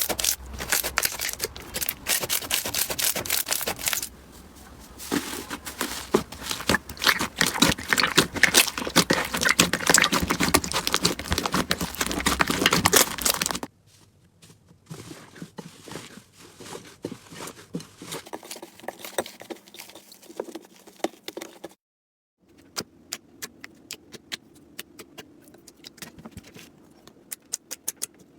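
Slime squeezed and worked by hand, making dense crackling and popping. About halfway through, the sound cuts abruptly to much quieter, scattered clicks and pops. After a short break near the end, sharp clicks come in ones and twos.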